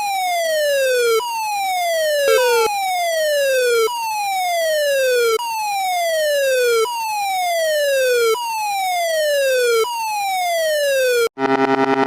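An electronic alarm siren played in reverse: a falling sweep, one about every one and a half seconds, each dropping about an octave and then jumping back up to start again. Near the end it cuts off suddenly and a steady, buzzy electronic chord takes over.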